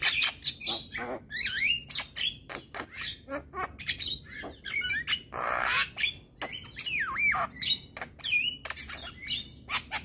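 Male Javan myna singing a rapid, varied run of clicks, chattering notes and gliding whistles, with a harsh rasping call about five and a half seconds in.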